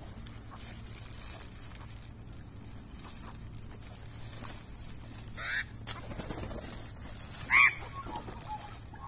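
Two short, harsh bird calls in the second half, about two seconds apart, the second one much louder, from the magpies and brush-turkeys squabbling over food.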